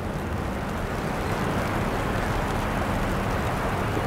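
Steady rushing noise of a passing vehicle, swelling a little over the first second or so and then holding steady, with a low hum underneath.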